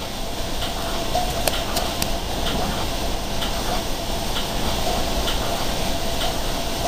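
Commuter train running on the rails, heard from inside the passenger coach: a steady rumble with a faint steady tone and light clicks about once a second. It swells louder in the first second.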